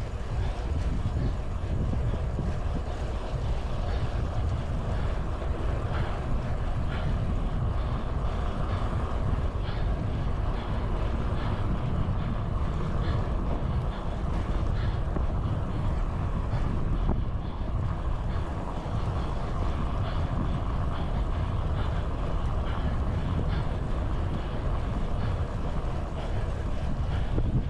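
Wind buffeting the microphone of a cyclist riding at speed, a steady rumbling rush with the hiss of road and traffic noise underneath.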